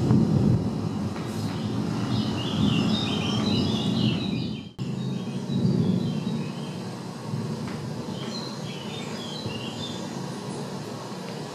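A steady low rumble with short high chirps scattered over it; the sound cuts out for an instant about five seconds in and then resumes.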